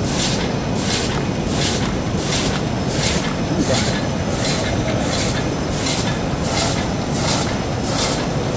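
Three-dimensional box folder gluer running: a steady mechanical running noise with a short hiss that repeats evenly, about every two-thirds of a second.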